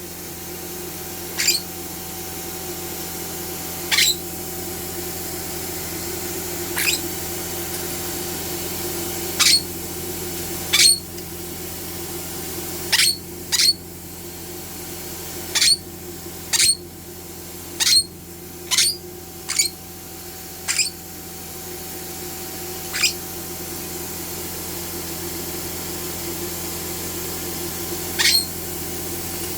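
A pet gives short, high squeaks at irregular intervals, about sixteen times, more often around the middle, while being vacuumed. Under them the vacuum cleaner hums steadily.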